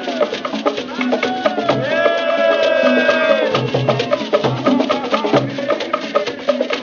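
Music: a voice holding long, slowly curving sung notes over busy, quick hand percussion.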